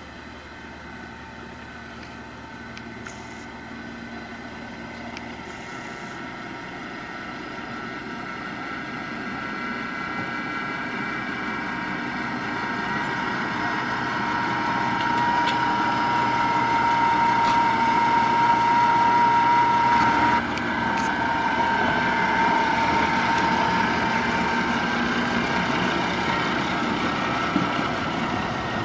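MBxd2 narrow-gauge diesel railcar running slowly and drawing steadily louder as it approaches and passes close by. A steady whine rides over the engine note. The sound drops suddenly about two-thirds of the way through.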